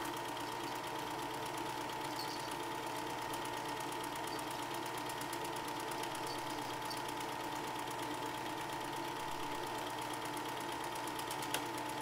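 Eumig Mark 510D Dual 8 film projector running steadily, a rapid, even mechanical clatter over a steady hum, and one brief click near the end. It is running smoothly, playing nice.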